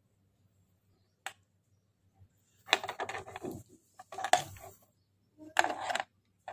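Clicking and rattling of the plastic head unit and its wiring being handled: one click about a second in, then three clattering spells, each under a second. A faint low hum runs underneath.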